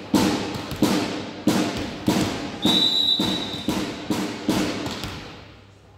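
A volleyball being bounced on a sports-hall floor before a serve: a thud about every two-thirds of a second, each echoing in the hall. A steady one-second blast from the referee's whistle about halfway through.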